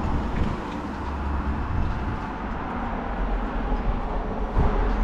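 Wind buffeting the microphone: a steady rushing noise with a deep rumble, swelling with a gust near the end.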